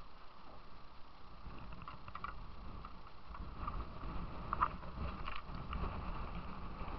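Shallow, fast water rushing around a kayak as it moves over a concrete grid-block ramp, with a few short sharp splashes or knocks, the loudest about four and a half seconds in. A low rumble grows louder from about four seconds in.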